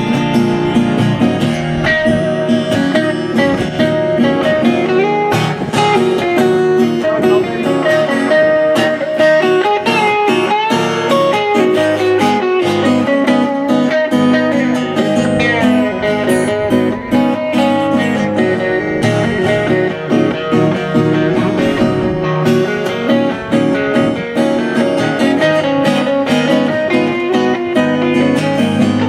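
Live instrumental break on amplified acoustic guitar and electric guitar, with bent notes on the lead line.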